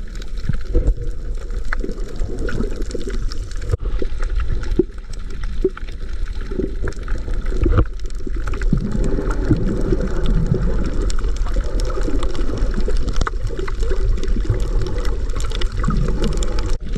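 Water sloshing and gurgling close to the microphone, muffled, with irregular small splashes and crackles, as from a camera moving at or just below the water's surface while snorkelling.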